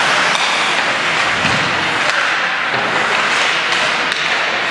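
Ice hockey play in a rink arena: a steady wash of skate and arena noise with a few sharp knocks of sticks and puck.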